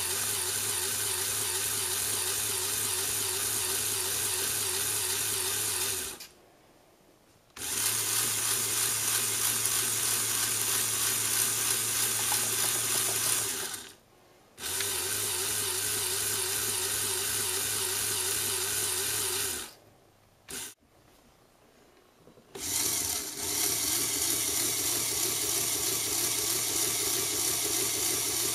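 Small electric motor of a LEGO Power Functions pump running with a steady mechanical whir. It falls quiet three times: briefly about 6 and 14 seconds in, and for about three seconds around 20 seconds in.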